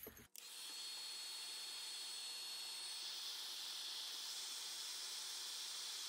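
Wagner electric heat gun switched on about a third of a second in, then blowing with a steady hiss as it shrinks heat-shrink tubing onto a coax connector. A faint high whine runs under the hiss for the first few seconds.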